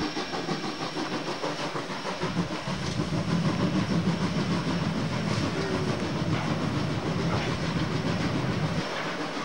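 Steam-hauled train with old coaches running across a steel truss bridge: a steady rolling rumble of wheels with rail clicks, growing deeper and heavier about two and a half seconds in and easing off shortly before the end.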